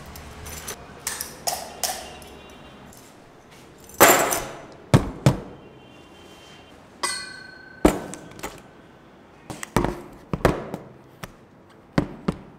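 Handling noise: a string of knocks, thuds and clinks as things, among them a bunch of keys, are put down on a table. The loudest knock comes about four seconds in, and a short ringing clink about seven seconds in.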